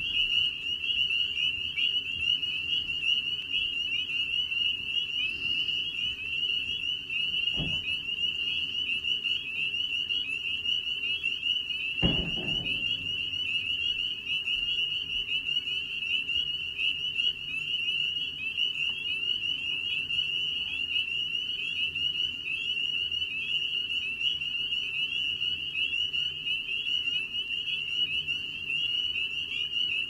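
A chorus of male spring peepers giving their breeding call: many short, high, rising peeps overlapping into a steady shrill din. Two dull thumps come about eight and twelve seconds in.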